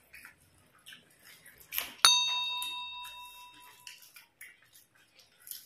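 A single bright bell ding about two seconds in, several ringing tones fading out over about two seconds: a notification-bell sound effect that goes with a subscribe-button graphic. Around it are soft, wet eating sounds of hands mixing rice and mouths chewing.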